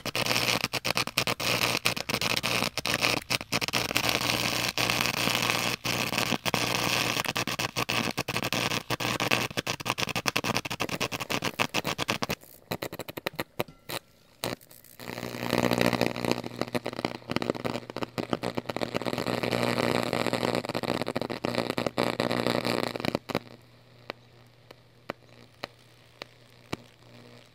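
High-current electric arc in molten rock salt, crackling and sputtering loudly over a steady low hum. It weakens for a few seconds about twelve seconds in, comes back, then falls to faint scattered crackles near the end as the current drops to about 16 amps.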